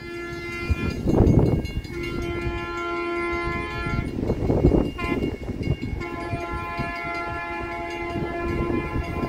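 Train horn sounding three blasts, a short one and then two long ones, with rushes of rumbling noise between them.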